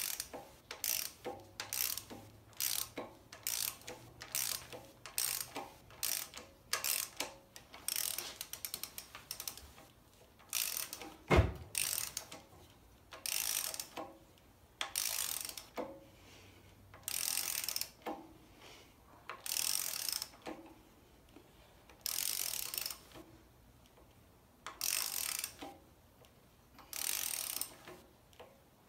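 Socket ratchet clicking stroke after stroke as it runs the 19 mm harmonic balancer bolt into the crankshaft. The strokes are quick and close together at first, then slow to longer swings about every two seconds, with one sharp knock about eleven seconds in.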